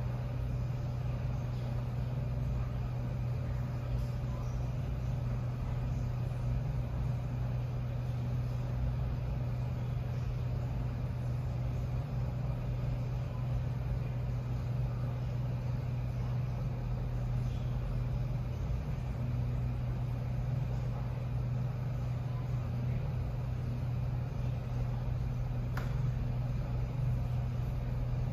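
A steady low electrical or mechanical hum with a faint hiss over it, unchanging throughout, with one faint click about 26 seconds in.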